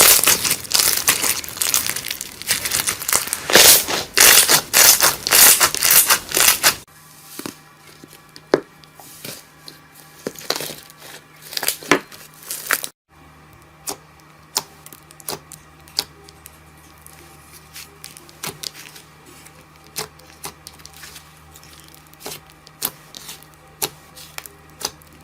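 Slime being squeezed and pressed by hand: loud, dense crackling for about the first seven seconds, then softer scattered clicks and pops.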